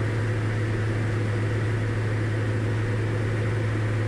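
Diamond DA40's engine and propeller running steadily in flight, heard from the cockpit as a constant low drone with an even hiss of airflow over it.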